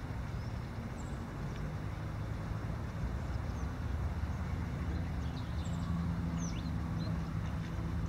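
Steady low rumble of distant road traffic, with a few faint, short high bird chirps scattered through it.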